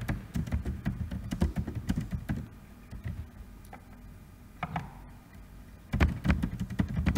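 Computer keyboard keys clicking as text is typed: a quick run of keystrokes, a pause of about two seconds, then two short bursts of typing near the end.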